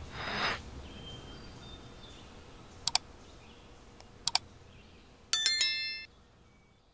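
Subscribe-button animation sound effects: a short swish, two mouse clicks about a second and a half apart, then a bright bell ding that cuts off abruptly.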